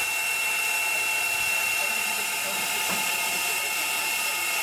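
Steam locomotive at a standstill, hissing steadily: a constant high whistling tone over an even hiss of escaping steam.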